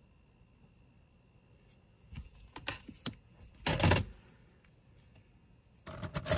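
Metal costume jewelry clicking and clattering as it is handled: a few sharp clicks from about two seconds in, one louder clatter near four seconds, then a rattle of pieces clinking together as a hand rummages through a wooden box full of jewelry near the end.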